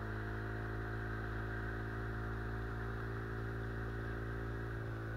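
Steady, even hum of the motor driving an inflatable boat upriver, with no change in speed.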